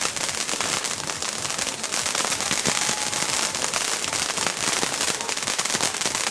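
Fireworks crackling: a dense, rapid stream of small pops and snaps that goes on without a break.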